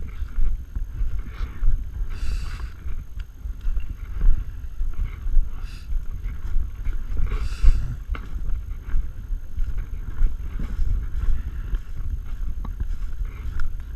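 Wind buffeting the microphone as a steady low rumble, with two brief hissing rustles about two and seven seconds in.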